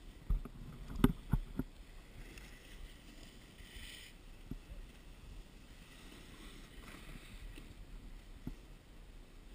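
Snowboard sliding over packed snow: a brief scraping hiss as a rider passes close by about four seconds in, over a faint steady hiss. A few dull knocks come in the first second and a half.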